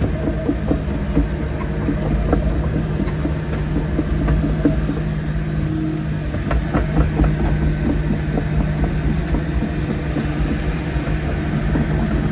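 Excavator's diesel engine running steadily under hydraulic load, with frequent knocks and rattles from the machine working dirt, which grow busier about halfway through.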